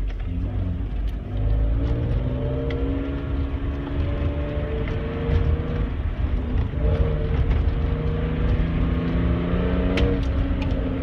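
A manual-transmission pickup truck's engine pulls away slowly and keeps running under load, heard from inside the cabin. Its pitch rises and falls a little, and there are a few sharp knocks and rattles, the loudest about ten seconds in.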